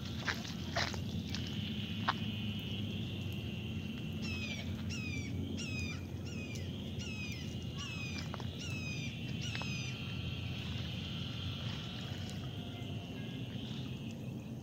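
Rural outdoor ambience: a bird calls a run of about a dozen short whistles, each sliding down in pitch, roughly two a second, in the middle of the stretch. Underneath are a steady high trill and a low rumble, with a few sharp clicks near the start.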